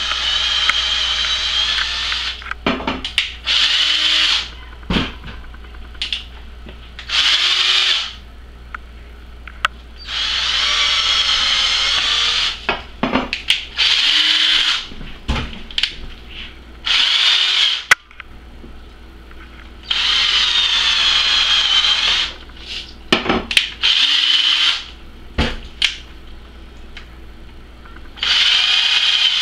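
DeWalt cordless drill spinning an ear of sweet corn on its bit while the kernels are cut off the cob. It runs in about nine short bursts of one to three seconds, each rising in pitch as the motor winds up, with clicks and knocks from handling between runs.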